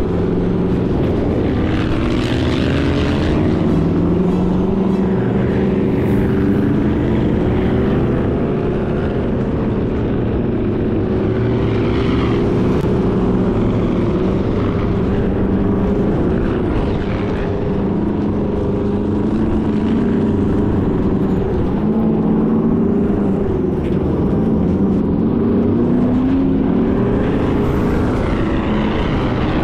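Sand rail engine running hard under load, its pitch rising and falling as the throttle changes, with a rushing hiss of wind and sand that swells every few seconds.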